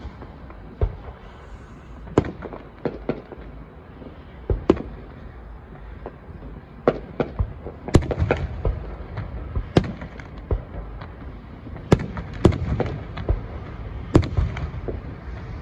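Aerial fireworks shells bursting overhead: a string of sharp booms at irregular intervals, each trailing a low rumble, coming faster in the second half.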